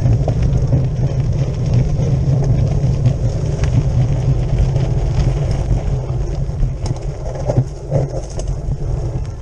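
Cyclocross bike ridden fast with a camera on its handlebar: a steady rush of wind buffeting the microphone and tyre rumble. Rattles and knocks come in near the end as the bike runs onto a rough dirt trail.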